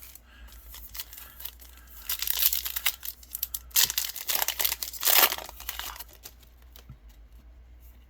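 Foil wrapper of a Yu-Gi-Oh booster pack crinkling and tearing as it is opened, in two louder spells of crackling about two seconds in and again from about four to six seconds.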